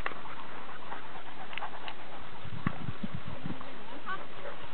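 Dogs panting as they run and play, over a steady background hiss, with a few soft low thumps about halfway through.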